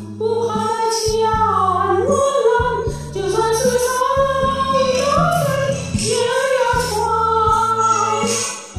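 A woman singing a Mandarin ballad over a karaoke backing track, her melody held in long wavering notes above steady bass notes from the accompaniment.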